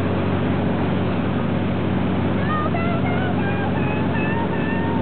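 Motorboat engine running steadily under way, with the rush of its churning wake. A person's voice joins in about halfway through.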